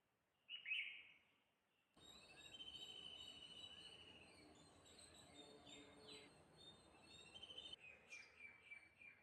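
Birds chirping and calling. A single short chirp comes about half a second in; about two seconds in a steady background hiss starts abruptly, with a long trill, a few quick falling calls and a run of chirps near the end.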